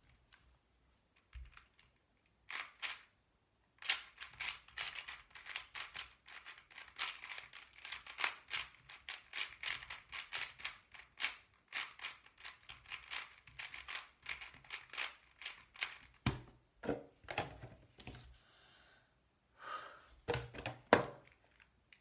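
Angstrom Aosu GTS2 M magnetic 4x4 speedcube having its layers turned quickly by hand: dense runs of plastic clicks and clacks. Near the end there are a few louder knocks.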